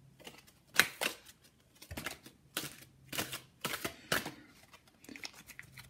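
A deck of tarot cards being shuffled and handled by hand: a string of irregular soft slaps and riffles, the sharpest a little under a second in.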